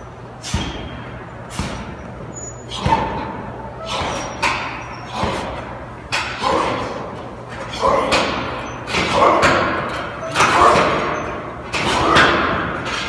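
Heavy punching bag struck hard with punches and kicks again and again, about one blow a second, the blows growing louder in the second half.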